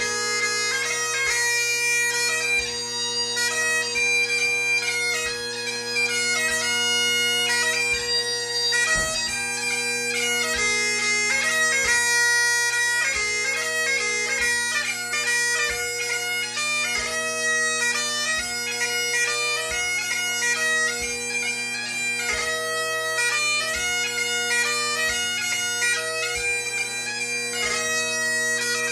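Great Highland bagpipe played solo: the drones hold one steady chord under a chanter melody that moves quickly from note to note.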